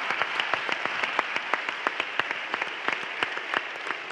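Audience applause: many hands clapping in a dense, irregular stream, with some sharper individual claps standing out.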